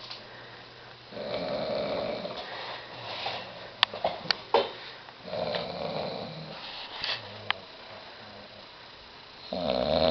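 A man sleeping on his side snoring: three snores about four seconds apart, the last starting near the end, with a few short sharp clicks in between.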